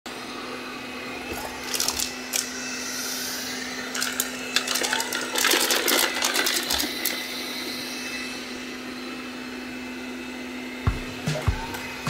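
IMOU robot vacuum running on a wooden floor: a steady motor hum with bursts of crackling ticks as it sweeps up small debris. A few low thumps come in near the end.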